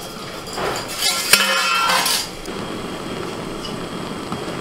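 Stainless-steel steamer pot and lid clanking and ringing for about a second and a half, starting about half a second in, as the steamer is opened.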